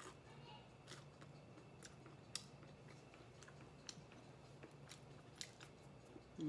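A person chewing pizza: faint, irregular mouth clicks and crunches of eating, over a low steady hum.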